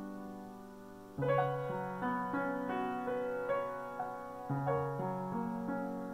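Upright piano being played: a held chord fades, then a new chord is struck about a second in, followed by single melody notes about every half second over sustained lower notes, with another chord near the middle.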